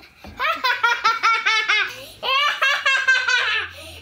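A young child laughing in two long bouts of quick, high-pitched pulses, one after the other.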